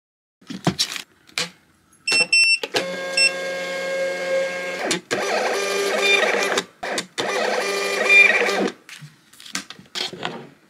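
Thermal shipping-label printer printing labels: a few clicks and short high beeps, then its feed motor running in three runs of about two seconds each with short pauses between.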